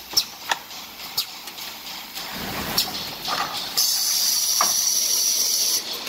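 Automatic kitchen towel and toilet paper rewinding machine running, with scattered sharp clicks and knocks from its mechanism. About four seconds in, a loud steady hiss starts and runs for about two seconds.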